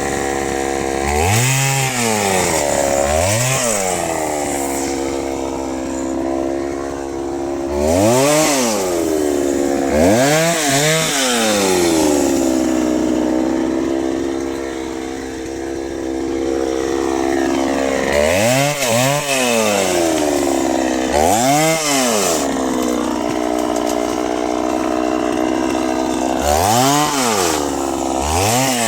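Chainsaw running hard, as in cutting wood, its engine held at high revs with the pitch dropping and climbing back in quick swoops several times as the throttle eases off and comes back on.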